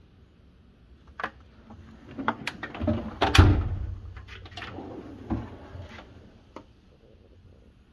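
Steel drawers of a US General 72-inch tool chest being shut and pulled open, a run of clicks, clatters and knocks with a short rumble of the drawer running on its slides, loudest about three and a half seconds in.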